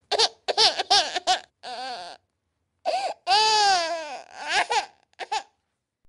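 A baby crying: a run of short cries that rise and fall in pitch, one longer wail a little past three seconds in, then a few shorter cries.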